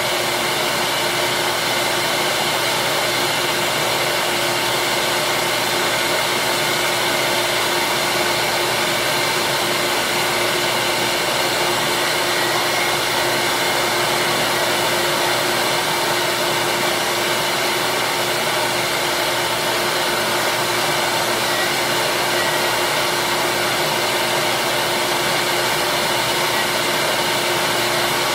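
Small benchtop disc sander running steadily, a constant motor whir with one held tone, as small plastic curling-shoe slider pieces are shaped against its sanding disc.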